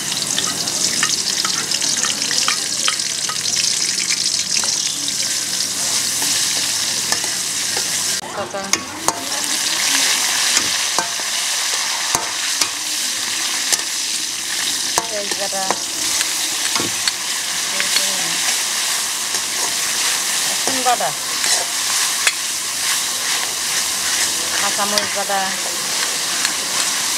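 Chopped onion sizzling in hot oil in an aluminium karahi, with a metal spatula stirring and scraping against the pan in short clicks. The sizzle dips briefly about eight seconds in.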